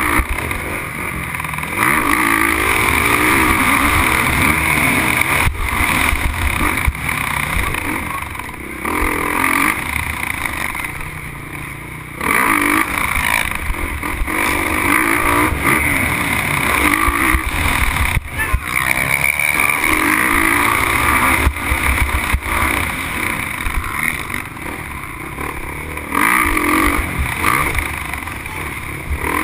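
Motocross bike's engine running hard under race throttle, its pitch rising and falling as the rider accelerates and backs off over jumps and corners, heard close up from a camera mounted on the bike.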